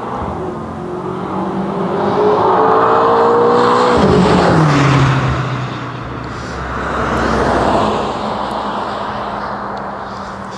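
BMW M5 F10's twin-turbo V8 exhaust under hard acceleration as the car goes by. The engine note climbs for about four seconds and drops sharply, then rises into a second loud pull and fades as the car drives away.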